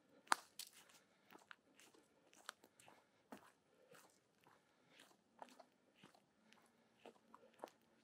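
Footsteps crunching on a rough countryside path, faint, with uneven sharp crunches and clicks.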